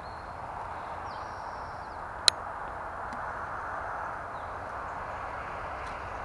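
Steady hiss of background noise with a single sharp click about two seconds in.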